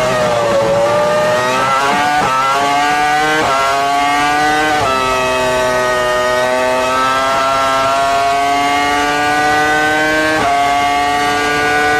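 Sauber's Ferrari V10 Formula 1 engine at high revs, heard onboard: it climbs in pitch with three quick upshifts in the first five seconds, holds a nearly steady high note through a long corner, then shifts once more near the end.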